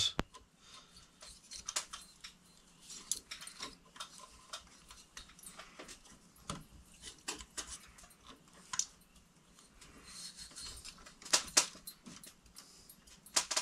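Hands handling electrical wires and twisting plastic wire nuts onto them at a metal junction box: scattered small clicks and scrapes, with a few louder clicks near the end.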